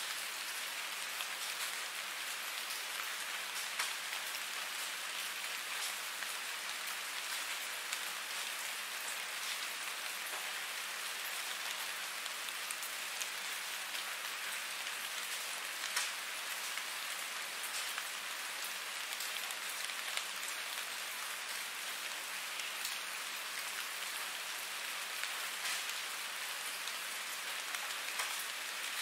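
Steady rain falling on a surface: an even hiss with many small drop ticks scattered through it, and no thunder.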